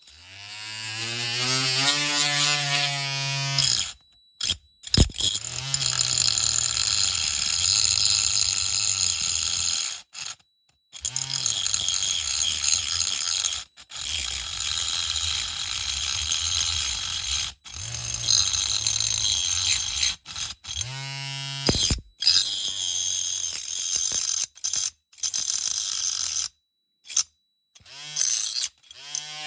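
Small hand-held electric power tool spinning up and running in long stretches. Its pitch rises as it gets up to speed near the start and again later, and it cuts off abruptly several times.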